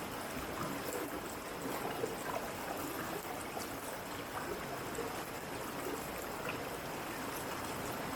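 Water running over rocks at a waterfall stream: a steady rush with small splashes and gurgles scattered through it.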